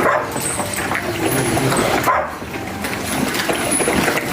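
A pack of dogs at feeding time, with barking among the general noise of the dogs.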